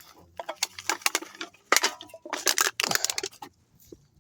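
Aluminium drink can being picked up and handled: a quick run of sharp metallic clicks and crinkles, loudest in the middle, stopping shortly before the end.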